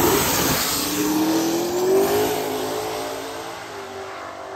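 Two small-tire drag cars at full throttle down the strip. The engine note climbs, drops back about half a second in, climbs again until about two seconds in, then falls away and fades as the cars pull into the distance.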